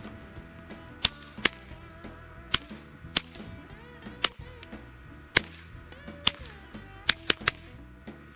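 Ten suppressed shots of subsonic .22 LR from a Walther PPQ 22 pistol through a CGS Hydra SS suppressor (stainless steel baffles, titanium body). Each is a short, quiet, staple-gun-like crack; the last three come in quick succession. Quiet background music plays underneath.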